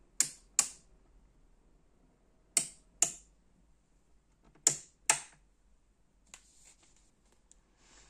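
Rotary selector switches on a Scuola Radio Elettra–style tube tester turned by hand: three pairs of sharp clicks about two seconds apart as the knobs are set from the valve chart. A soft paper rustle follows near the end.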